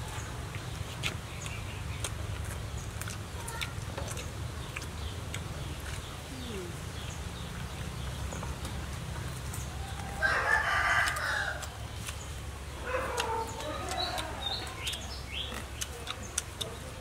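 A rooster crows about ten seconds in, followed by a second, lower call about two seconds later, over scattered faint clicks.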